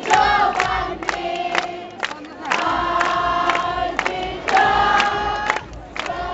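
Large crowd singing together in long held notes, with a sharp beat about twice a second.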